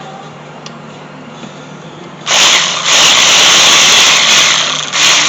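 Power tool with a 12 mm socket spinning out an AC compressor mounting bolt, starting about two seconds in and running in three spells with brief pauses.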